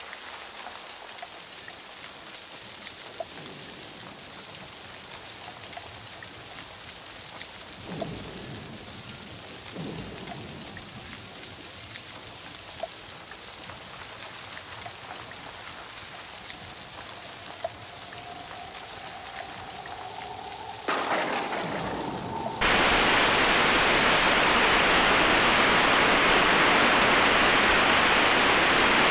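Steady rain falling, with a few faint ticks and two brief low rumbles. About three-quarters of the way through it cuts abruptly to a much louder, steady rush of water.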